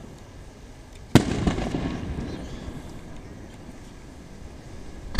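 Aerial firework shells bursting. A sharp bang about a second in is followed by a scatter of smaller crackles and a rumble that dies away, and a second bang comes at the very end.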